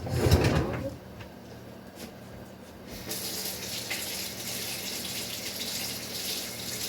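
A knock and clatter, then a kitchen tap running steadily into the sink from about three seconds in.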